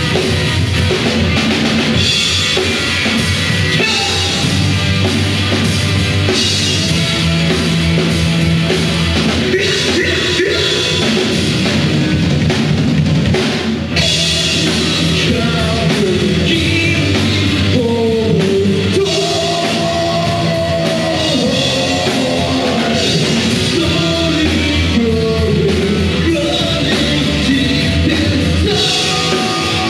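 Live rock band playing: electric guitar, bass and drum kit, with a man singing into a handheld microphone, his voice strongest over the second half.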